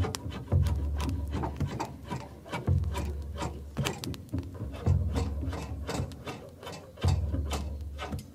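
Background music: a deep bass note struck about every two seconds, each held for about a second, over quick clicking percussion.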